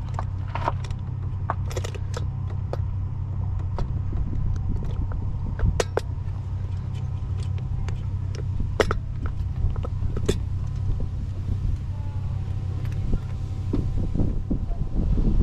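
Scattered sharp metallic clicks and clinks of hand tools and carburetor hardware being worked, over a steady low hum.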